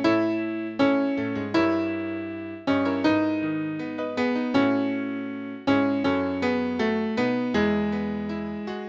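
Piano accompaniment playing slow chords without any voice, each chord struck and left to fade, about one a second.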